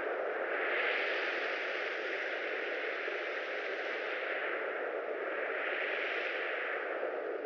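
A steady rushing, hiss-like noise on the dance-film soundtrack. Its brighter part swells and fades slowly, about every five seconds, with no words or beat.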